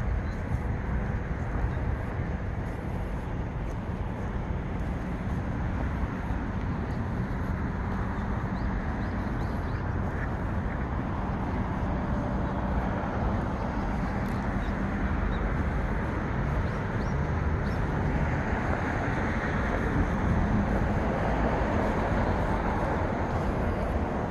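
Steady outdoor background noise: a low rumble of wind on a handheld phone's microphone, mixed with distant road traffic.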